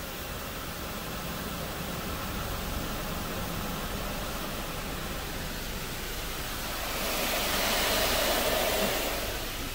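Autec AES-425 in-bay car wash spraying the car during its wax pass, heard from inside the car as a steady hiss and hum. About seven seconds in the spray sweeps onto the windshield and the hiss grows louder for a couple of seconds, then eases off.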